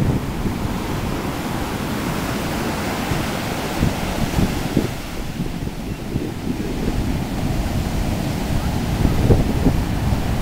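Heavy shore-break surf crashing and white water washing in, with wind buffeting the microphone. It gets a little louder near the end.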